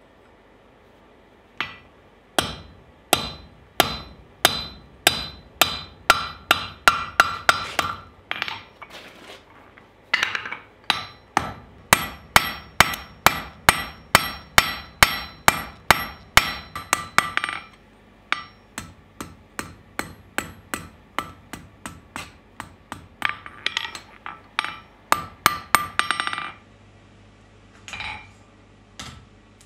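Hand hammer striking hot steel on an anvil with a bright metallic ring, about two blows a second. The blows come in runs broken by short pauses and are lighter in the latter half.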